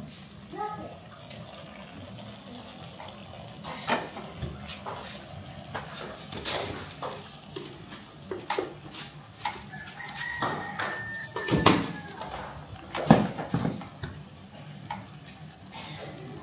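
Farmyard fowl calling, amid scattered sharp knocks and clatters; the two loudest knocks come in the second half.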